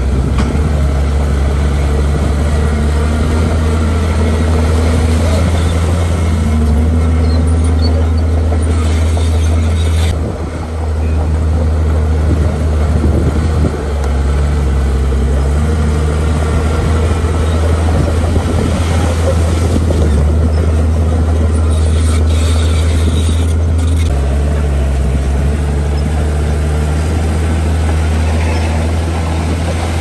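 Heavy diesel earthmoving machinery running at work with a steady low drone, its engine note rising and falling several times as it is worked.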